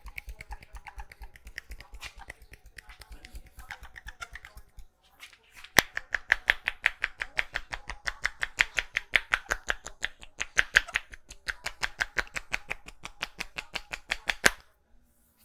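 Rapid, even percussive massage strokes: hands tapping and chopping at about six or seven slaps a second. They are softer at first, pause briefly, then come back sharper and louder about six seconds in, and stop shortly before the end.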